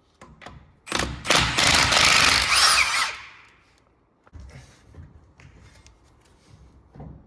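A power tool driving a socket runs for about two seconds, loosening a bolt during a wheel hub teardown, followed by a few light metal clicks and knocks of tools being handled.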